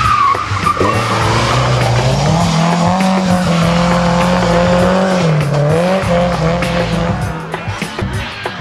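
Racing car engine running hard: its pitch climbs, holds steady, dips briefly about five seconds in and climbs again. A short high tyre squeal falls away at the start.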